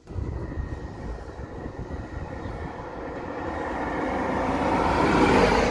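A vehicle passing by: a low rumble that swells steadily to its loudest near the end, then begins to fade.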